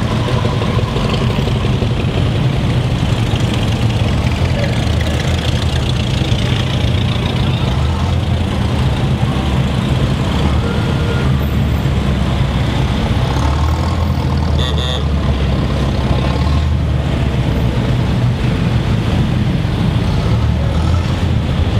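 A procession of Model T Ford speedsters driving past one after another, their four-cylinder engines running steadily, swelling as each car goes by. A horn toots briefly about two-thirds of the way through.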